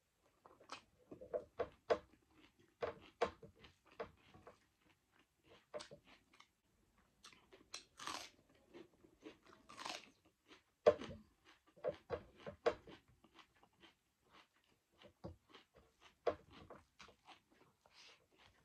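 Chewing and crunching of a mouthful of rice and curry eaten by hand, with crisp bites into raw onion; the loudest crunch comes about eleven seconds in. Two longer hissing sounds come about eight and ten seconds in.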